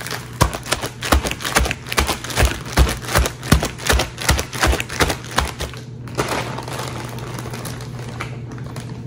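Chicken pieces deep-frying in hot oil, crackling steadily over a low hum, with a run of quick knocks about three a second that stops about six seconds in.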